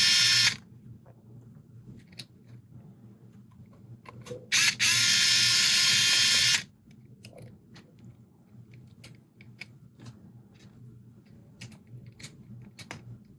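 Small low-power electric screwdriver whining as it drives M3 screws into an RC crawler wheel hub, in two short runs: one stopping about half a second in, another of about two seconds near the middle. Light clicks of small parts being handled in between.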